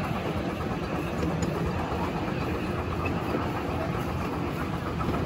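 Miniature railway train on 7.25-inch gauge track, heard from an open passenger carriage: steady running noise of the wheels on the rails and the small locomotive.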